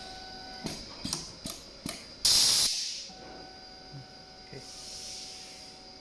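Pneumatic automatic fiber stripping machine cycling: four quick clicks as its clamps and cylinders move, then a short, loud hiss of compressed air that fades within about half a second. A steady faint hum from the machine stops while it cycles and returns afterwards.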